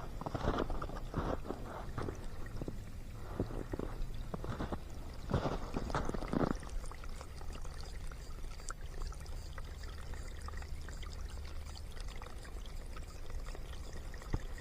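Water running and trickling in a small creek. A few crunching footsteps in snow come over it in the first half.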